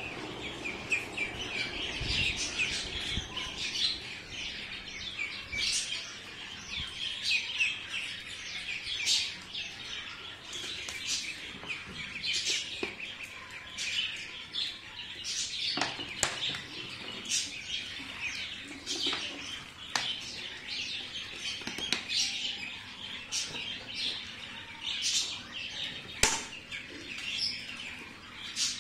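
A flock of Khaki Campbell ducklings peeping nonstop, many high chirps overlapping, with a few sharp clicks.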